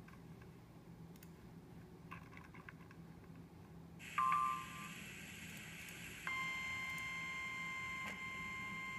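A NOAA Weather Radio receiver hissing faintly, then a short loud tone burst about four seconds in, and from about six seconds in the steady weather-radio warning alarm tone, one unbroken beep. The alarm tone signals that an emergency weather bulletin follows.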